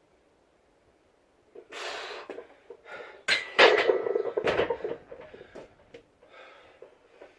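A person breathing hard: a forceful exhale about two seconds in, then a louder strained burst of breath mixed with sharp clicks and knocks around the middle, and smaller breaths after.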